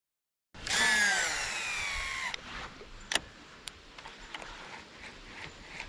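Fishing reel spool whirring as a lure is cast, a whine that falls steadily in pitch as the spool slows over about a second and a half, followed by a few sharp clicks.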